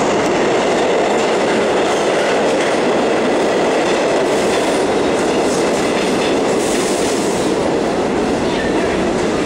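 New York City subway train pulling into the station, its cars rolling past close by with a loud, steady noise of steel wheels on the rails.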